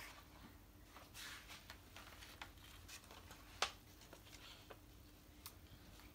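Faint rustling of a picture book's paper pages as a page is turned, with light handling clicks and one sharp click about three and a half seconds in, over a faint steady room hum.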